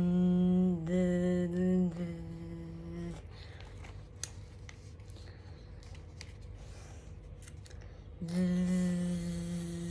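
A woman's voice humming one steady, level note for about three seconds, then a stretch of quiet room noise with a few faint clicks, then another long, level hum from about eight seconds in.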